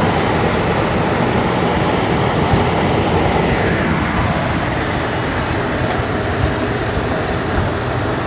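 Pickup truck cab noise while driving slowly over packed snow: a steady low rumble of engine and tyres, with a few faint knocks and rattles.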